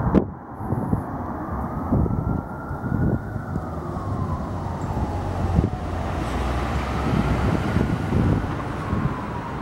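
Emergency vehicle siren in a slow wail, rising and falling about every five seconds, over a steady rumble of engine and road noise. A sharp knock sounds right at the start, and a few dull thumps follow.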